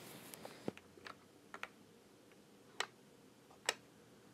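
Light wooden clicks and taps as the small doors of a wooden cabin advent calendar are pushed shut and a figure is set into its compartment: about half a dozen separate sharp ticks, the two clearest about a second apart near the end.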